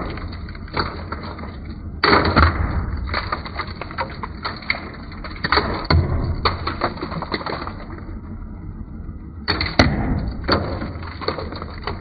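Electric exhaust fan running with a steady low hum while dropped pieces of biscuit clatter and crack against its spinning blades and the walls of the box around it, with loud bursts of rattling about 2, 6 and 10 seconds in.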